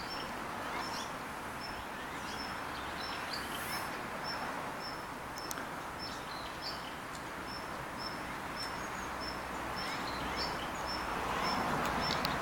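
Steady outdoor background noise, with a short, high chirp repeated at an even pace, about once every two-thirds of a second, and a few fainter chirps.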